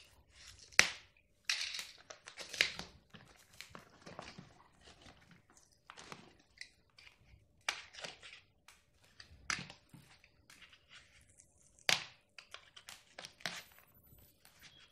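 Cardboard shipping box being cut and torn open by hand: irregular crunching, tearing and crinkling, with a few sharper, louder rips.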